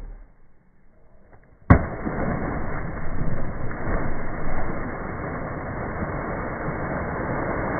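A person jumping feet-first into a river: one sudden loud splash a little under two seconds in, followed by steady rushing, churning noise of disturbed water.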